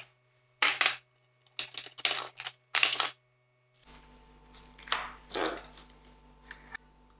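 Plastic cling wrap being pulled off its roll and stretched over a glass dish: a handful of short rustles.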